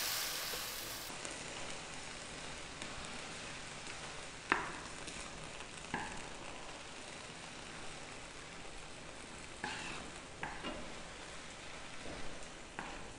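Sliced bitter gourd sizzling quietly as it sautés in a wok, stirred with a wooden spatula that scrapes and knocks against the pan a few times, most sharply about four and a half seconds in.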